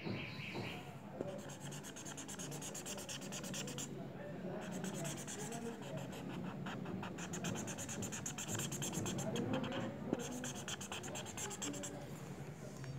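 Marker tip scratching across paper in quick back-and-forth strokes as it shades in an area, in runs with short pauses between them.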